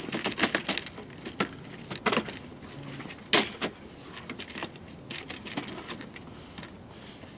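Trim piece being handled and fitted against the pet door frame: scattered clicks and knocks, the loudest about three and a half seconds in.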